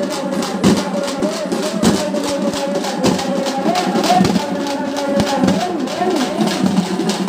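Troupe of dappu frame drums beaten with sticks in a fast, steady, interlocking rhythm, with a wavering melody line running above the drumming.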